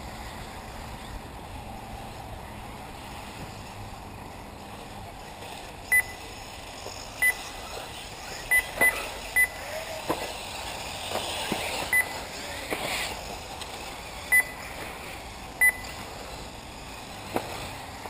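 Short, high electronic beeps, about eight of them at irregular intervals starting about six seconds in, typical of an RC race lap-timing system registering cars as they cross the line. Under them comes the faint whine of 1/8-scale electric off-road buggy motors, rising and falling.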